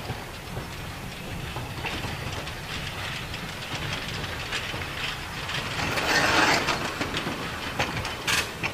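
Narrow-gauge steam locomotive drawing a short train slowly along the track: a steady running noise with a faint rhythmic clatter of wheels and wagons, swelling into a louder hiss about six seconds in, with a few sharp clanks near the end.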